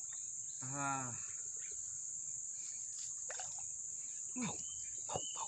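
Steady, high-pitched drone of insects such as crickets, with a short vocal sound about a second in.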